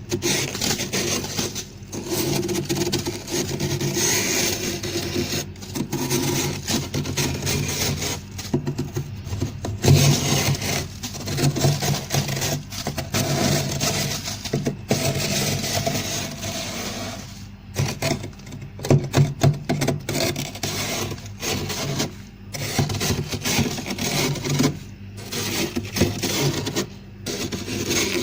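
Frost being scraped off a fridge freezer wall in repeated rasping strokes, with brief pauses between strokes and a low steady hum underneath.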